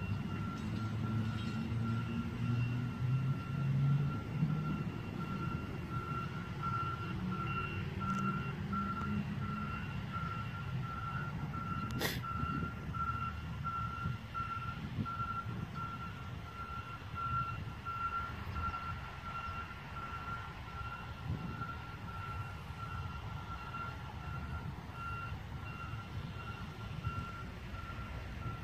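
A railroad crossing's electronic warning bell beeps in a steady, fast, even pulse. Under it, a low rumble is loudest about four seconds in and then dies away. A single sharp click comes about twelve seconds in.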